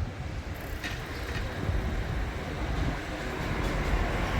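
Wind buffeting the microphone: a low, uneven rumble, with a couple of faint clicks about a second in.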